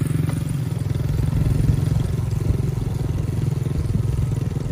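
Yamaha TT-R110's small air-cooled four-stroke single-cylinder engine running steadily as the dirt bike is ridden along.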